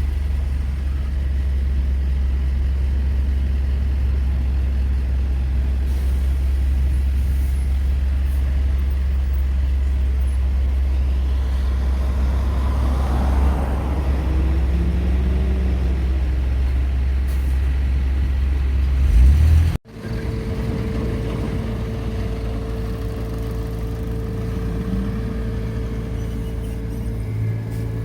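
Road traffic at an intersection: a steady low engine hum, with a vehicle passing in the middle that swells and fades. Past two-thirds in, the sound breaks off abruptly and gives way to a different steady engine hum with a held mid-pitched tone.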